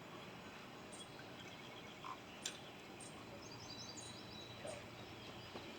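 Faint pondside outdoor ambience: a steady hiss with a few small clicks, and a short high trilling call, like a frog or bird, between about three and four seconds in.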